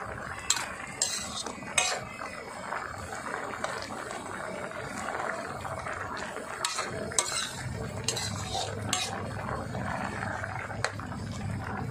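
A metal ladle stirs thick green curry bubbling in a metal wok on high heat, with scraping and sharp clinks against the wok eight or so times. The curry is kept moving so it does not scorch at the wok's edge while the eggplants cook.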